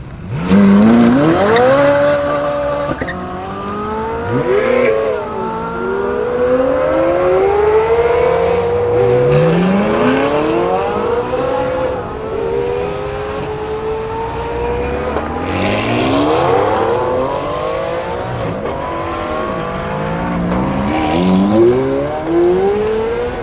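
Supercar engines accelerating hard. The revs start suddenly and climb in repeated rising sweeps, dropping back at each upshift and climbing again through the gears.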